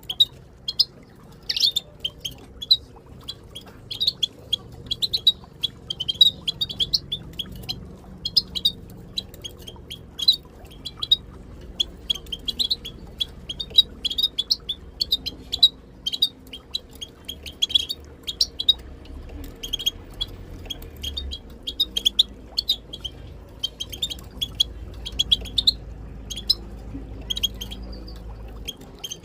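Small finches, European goldfinches and linnets, giving a steady stream of short, rapid twittering contact calls, the kind of chatter played to stimulate caged birds to sing.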